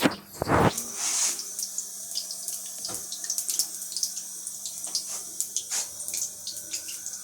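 Samosas deep-frying in hot sunflower oil: a steady sizzling hiss full of small crackles and pops. A louder knock comes about half a second in.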